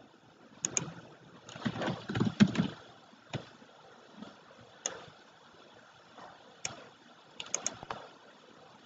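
Scattered sharp clicks, singly or a few in quick succession, with a louder burst of duller knocks about two seconds in: a computer mouse being clicked and handled on a desk.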